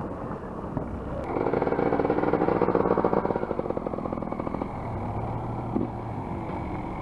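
Motocross dirt bike's engine running, its rapid firing loudest for about three seconds from a second in, then easing off, over a vehicle's engine idling.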